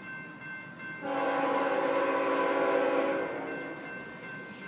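Air horn of a BNSF freight locomotive (GE C44-9W) sounding a long chord blast that starts about a second in, holds for about two seconds, then fades. A fainter chord of the horn is heard before the blast.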